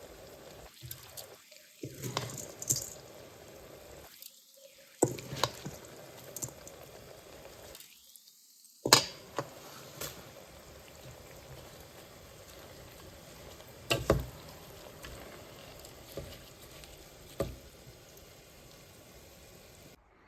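Food cooking in a pot, with a faint steady sizzle and scattered sharp clinks and knocks of a utensil against the pot; the sound drops out briefly three times.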